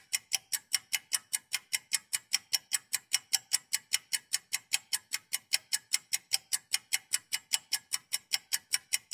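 Clock ticking sound effect: fast, even ticks, about five a second.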